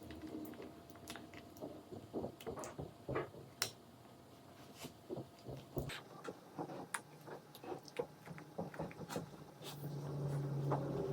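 A child chewing and eating, with irregular wet mouth smacks and small clicks. A low hum comes in about ten seconds in.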